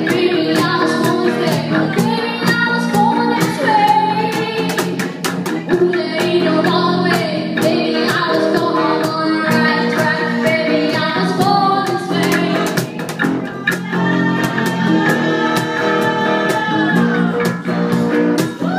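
Live band playing a song: a singer carries the melody over guitar and a drum kit keeping a steady beat.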